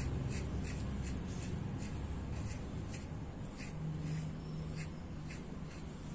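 Gillette 7 O'Clock double-edge safety razor with a Topaz Platinum blade, on its second use, scraping through lathered stubble in short strokes. The strokes come about two or three a second and thin out toward the end.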